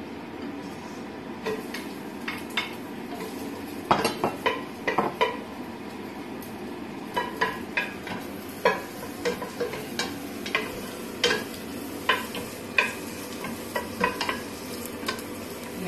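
Sliced onions and garlic sizzling in a little oil in a stainless steel pot, stirred with a wooden spatula that knocks against the pot's sides again and again, in a flurry about four seconds in.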